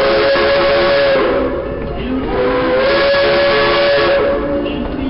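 Steam locomotive whistle blowing two long blasts, each held about two seconds over a hiss of steam.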